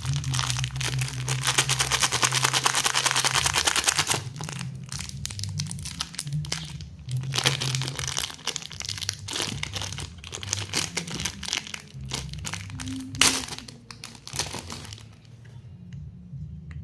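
Plastic lollipop wrappers crinkling as they are handled and unwrapped. There is a dense, continuous crinkle for about the first four seconds, then scattered crinkles and crackles, with one sharp, loud crackle about 13 seconds in.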